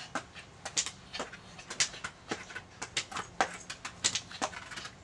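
Forearm crutch tips and a child's shoes tapping and scuffing on a concrete patio as she walks quickly, an irregular run of sharp taps, a few a second.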